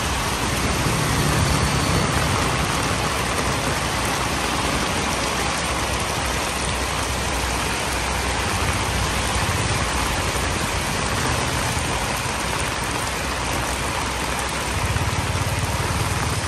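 Steady heavy rain pouring onto a wet road, a dense, even hiss. Motorbikes pass through the water, adding a low engine hum about a second in and again near the end.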